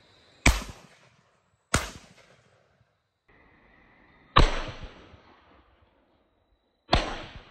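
Four shotgun shots, the first two about a second apart and the next two a few seconds later. Each trails off in a fading echo.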